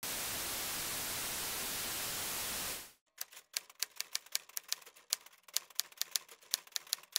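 A steady hiss of TV static for almost three seconds that cuts off abruptly, followed by typewriter keys clacking, about five strokes a second.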